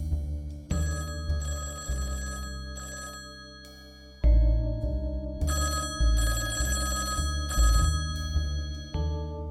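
A telephone ringing twice, each ring lasting about three seconds, over slow, low background music.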